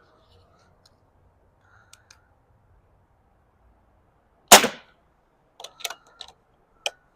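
.22 air rifle firing a single hollow-point pellet, one loud sharp crack about four and a half seconds in. A few faint clicks come before it and several sharp clicks and knocks follow it.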